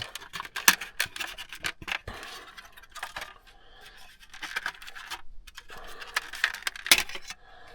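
Hard plastic clicking and scraping as a car's interior dome-light diffuser is unclipped and handled, with a string of small snaps and a couple of louder ones.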